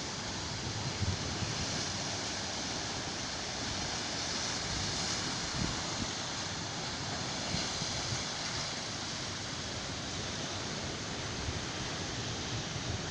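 Steady wash of ocean surf, with wind buffeting the microphone in brief low gusts.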